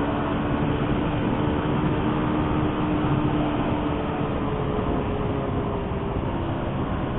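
Motorcycle engine running while riding along a highway, a steady engine note over a constant haze of road noise. The note steps up in pitch about halfway through.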